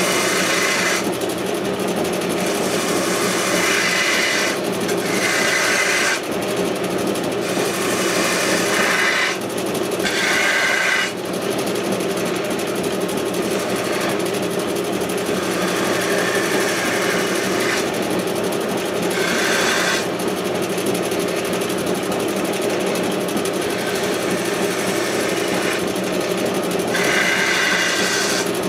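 Wood lathe running with a steady motor hum while a turning gouge cuts the spinning wooden spindle, the cuts coming in repeated scraping passes of a second or two each.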